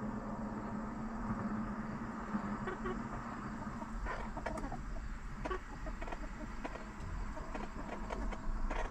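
Backyard hens clucking now and then, with short sharp sounds from about four seconds in, over a steady low hum.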